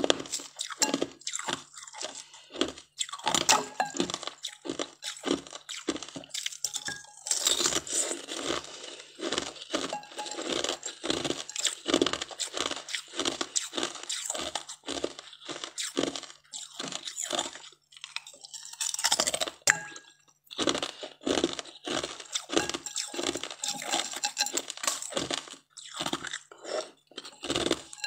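Hard, clear ice being bitten and chewed close to the microphone: a quick run of sharp crunches, two or three a second.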